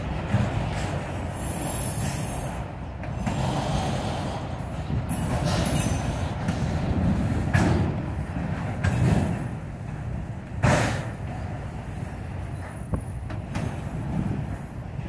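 Freight train of autorack cars rolling past: a steady rumble of steel wheels on the rails, broken by a few sharp clanks, the loudest about ten and a half seconds in.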